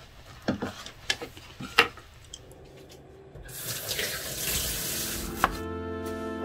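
A few faint knocks of notebooks being handled on a wooden desk, then water running from a kitchen tap from about halfway through. Soft music comes in near the end.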